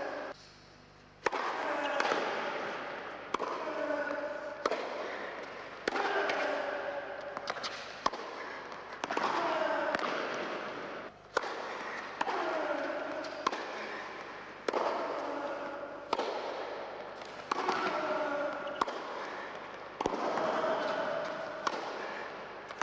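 Tennis racquets striking the ball in a baseline rally, a hard hit about every second and a half, each echoing in a large indoor hall.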